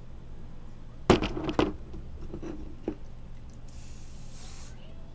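Garnier aerosol hairspray hissing in one short burst of about a second, near the end. A few sharp handling knocks come about a second in, the loudest sounds here.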